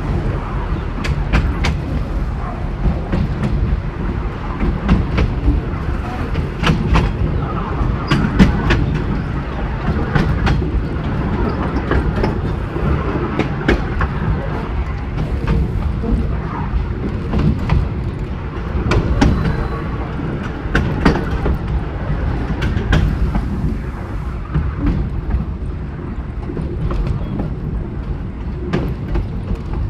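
Narrow-gauge train running along the track: a steady low rumble with frequent sharp clicks of the wheels over the rail joints.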